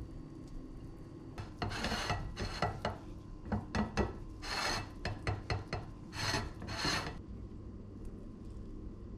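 Metal utensils scraping on a plate and pot while rice is served and shaped, a run of rasping scrapes with a few sharp clicks between about one and a half and seven seconds in.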